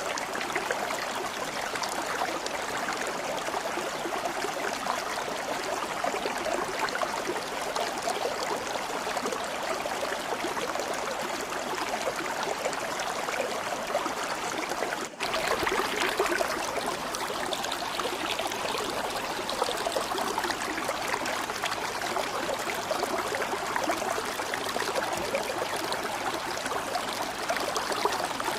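Stream water flowing and trickling steadily, with a momentary dropout about halfway through.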